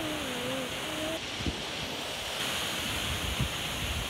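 Steady wash of sea surf and wind, with a faint, drawn-out, wavering call from a distant voice during the first second.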